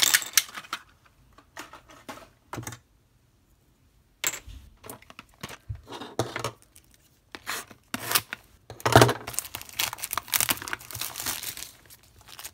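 Clear plastic wrapping on blind-box toy packaging being torn and crinkled by hand, in irregular bursts. The crinkling stops for about a second a few seconds in, then picks up again and is busiest near the end.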